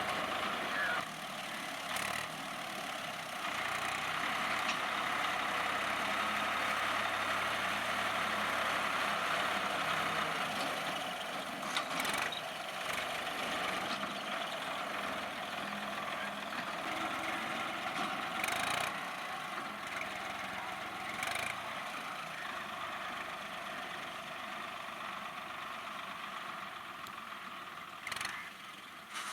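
Swaraj 960 FE tractor's diesel engine running steadily, with a few short sharp clanks now and then.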